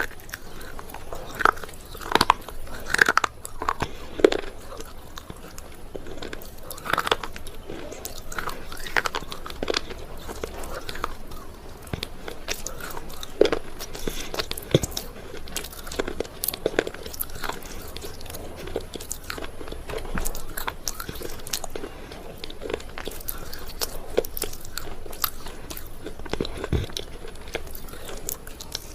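Someone biting and chewing something hard and dry, close up: a dry crunch with irregular sharp cracks and crackles that comes and goes throughout.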